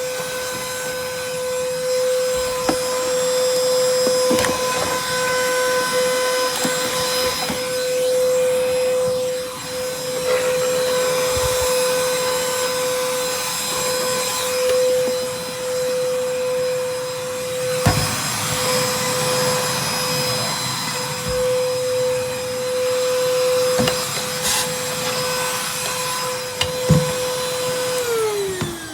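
Small handheld vacuum cleaner running with a steady high-pitched motor whine, over a few knocks and rubbing sounds from the nozzle on surfaces. Near the end it is switched off, and the whine falls in pitch as the motor winds down.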